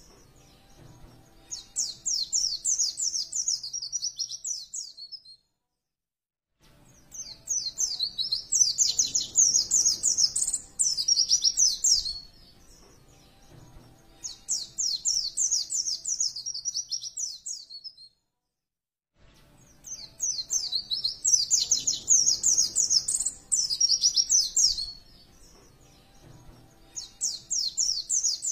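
A white-eye (pleci) singing in bursts of fast, high chattering notes. Each phrase lasts a few seconds, and there are five phrases with short pauses between them.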